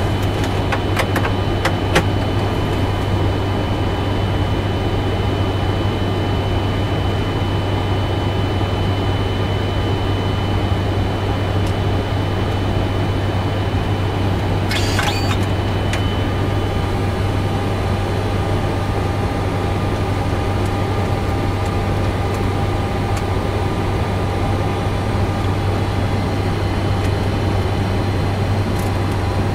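Steady flight-deck noise of a Boeing 747-400 freighter on the ground with its engines running: a constant low hum with a hiss of air over it. A few sharp clicks come in the first couple of seconds and a short hiss about halfway, where a faint high whine gives way to a lower one.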